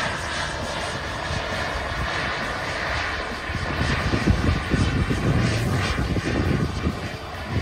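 Swiwin 220 model jet turbine of a 1:4 scale Soko Galeb G-2 RC jet running: a steady rushing whine, with a low rumble that grows louder in the second half.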